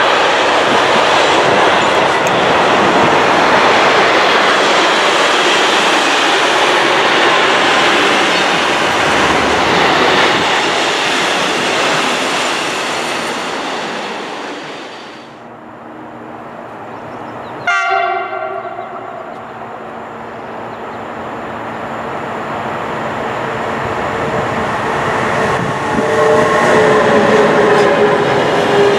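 Freight train of hopper and tank wagons rolling past, with steady wheel-on-rail noise that fades away about halfway through. A short horn blast sounds a couple of seconds later. Then another freight train with car-transport wagons rolls in loudly near the end.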